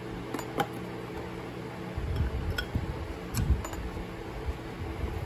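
A steady mechanical hum with a few light clicks and clinks of transmission parts being handled. From about two seconds in there are low, uneven bumps and rumbles.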